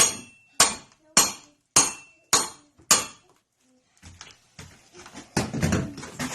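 A run of six sharp, evenly spaced strikes, a little under two a second, each with a brief high ring. The strikes stop after about three seconds. Scattered knocks follow, then louder rustling noise with a voice near the end.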